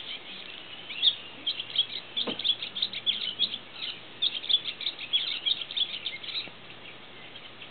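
Barn swallow singing: a fast run of short, high chirps that stops about six and a half seconds in.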